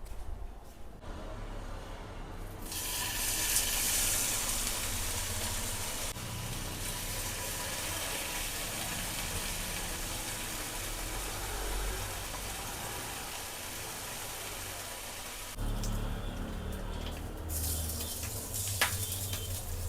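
Water running steadily from a tap for about twelve seconds, stopping abruptly about three-quarters of the way through.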